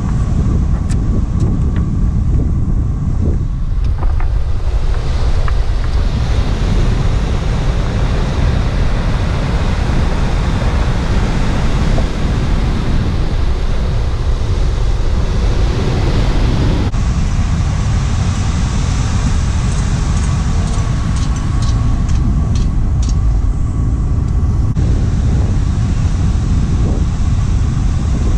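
Wind buffeting the microphone, a steady low rumble over the rush of breaking surf.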